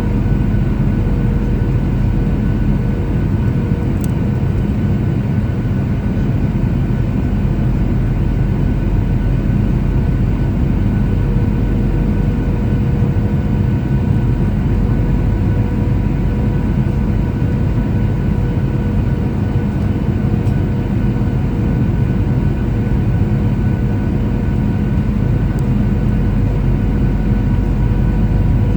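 Steady in-cabin noise of a Boeing 737-800 in flight on descent: a dense, even rumble of engine and airflow with several steady whining tones from its CFM56 turbofan engines. A faint tick about four seconds in.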